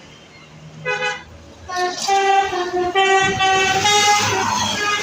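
Bus telolet horn, the musical multi-note horn on Indonesian buses. It gives one short note about a second in, then plays a tune of stepped notes that jump up and down in pitch for about three seconds.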